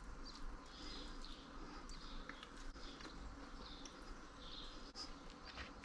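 Quiet room with faint high chirps repeating in the background and a few soft clicks of someone eating from a plate.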